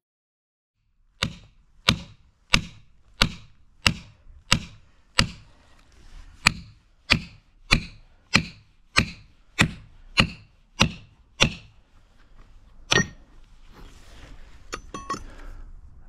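A steady series of sharp, evenly spaced strikes, about one and a half a second, seventeen or so in a row, then a single strike after a short pause.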